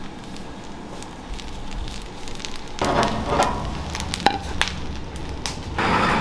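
Fried rice sizzling and crackling in a hot stone pot (dolsot), with scattered sharp clicks. It is quieter at first and grows louder about three seconds in.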